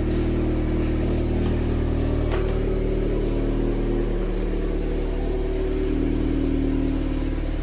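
2020 Honda Accord's turbocharged four-cylinder idling steadily through a newly installed Borla S-Type cat-back exhaust, its tone shifting slightly about two and a half seconds in.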